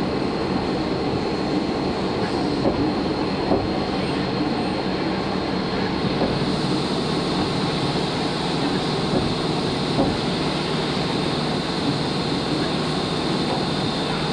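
Salvagnini P1 panel bender running: a steady mechanical noise with a faint high whine and a few light clicks.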